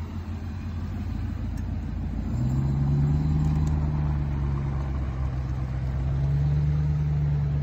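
Ram 1500 TRX's supercharged V8 running at low speed while towing a boat trailer: a steady deep engine drone that gets louder about two and a half seconds in and holds.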